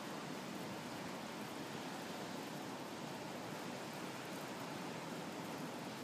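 Ocean surf breaking on a beach, heard as a steady, even rushing hiss with no single wave standing out.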